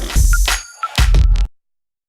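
Electronic music with two heavy bass hits, cutting off suddenly about a second and a half in, then dead silence.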